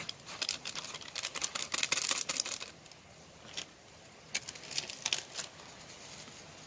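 Plastic spice packet crinkling and crackling in the hands as red chilli powder is shaken out of it: quick runs of short crackles for the first two and a half seconds, then again from about four to five and a half seconds in.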